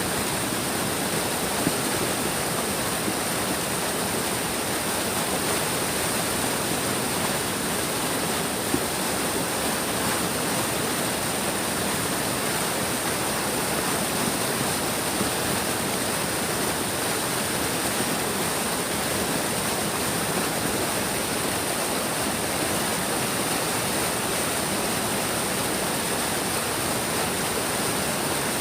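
A big stream flowing steadily: a dense, unbroken hiss and rush of water.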